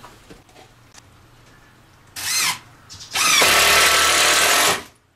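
Cordless drill run in two goes: a short trigger blip about two seconds in, then a steady run of about a second and a half at full speed that cuts off just before the end.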